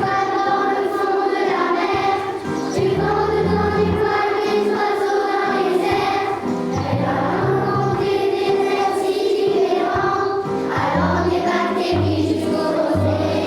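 Music: a choir singing long held notes over a low accompaniment.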